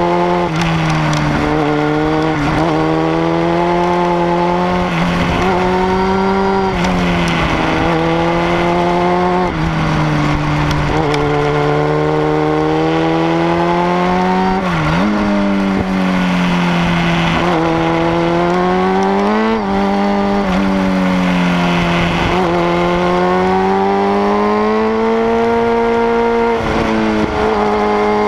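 Sportbike engine under way, its pitch climbing as it accelerates and then dropping off, over and over, with a sharp dip about halfway through at a gear change or throttle roll-off.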